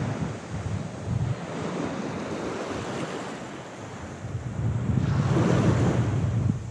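Sea waves washing on the shore with wind buffeting the microphone in gusts; the rumble eases off for a couple of seconds and swells again about five seconds in.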